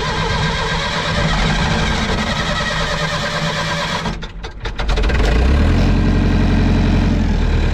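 Caterpillar 205LC excavator's diesel engine being cranked by the starter for about four seconds, then catching about five seconds in and settling into a steady run. The owner finds the way it starts a little weird.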